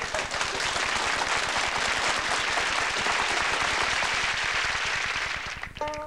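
Audience applauding, dying away near the end as music comes in.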